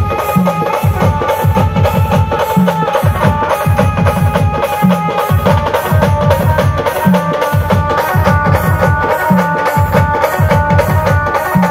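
Maharashtrian brass band playing loud procession music: a driving drum beat whose pattern repeats about every two seconds, under held melody notes.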